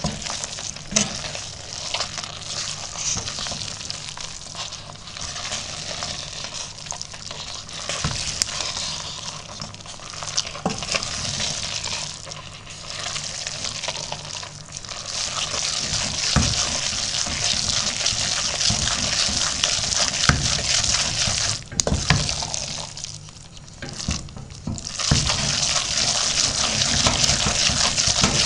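Wooden spoon stirring and scraping a moist, crumbly cottage-cheese and sheep's-curd mixture in a stainless steel pot over low heat, the early stage of cooking it down into a cheese paste. A steady wet stirring noise with frequent small knocks of the spoon against the pot; it grows louder about halfway through, drops briefly near the end, then picks up again.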